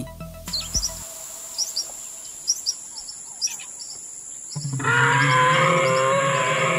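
Faint bird chirps over a steady high-pitched insect whine, then about four and a half seconds in a loud, long animal call with a steady low pitch starts and holds to the end.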